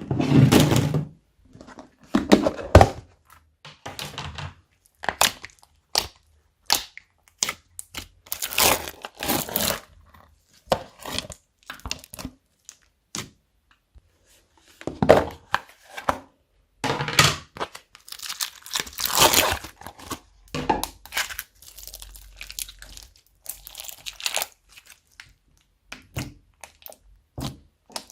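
Slime being mixed and worked by hand: irregular sticky crackles, pops and squishes, some short and some lasting about a second, with brief pauses between.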